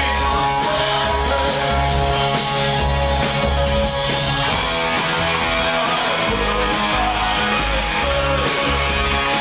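Live band music played loud through a venue's sound system: a steadily pulsing bass under sustained chords, with a singer's voice over it.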